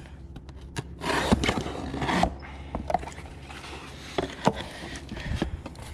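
A case of engine oil being cut open with a blade: a rough scraping rip about a second in, lasting a little over a second, then a few light knocks and clunks as it is handled.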